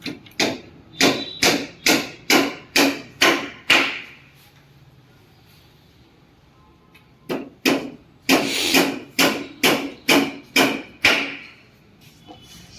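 Hammer blows, about two to three strokes a second, in two runs with a pause of about three seconds between them.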